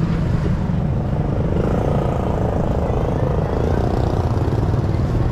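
Steady low engine rumble of motor traffic.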